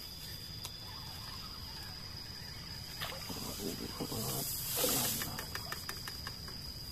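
Fishing rod and spinning reel being handled: rustling and a breathy hiss, then a quick run of light clicks, over a steady high-pitched drone of night insects.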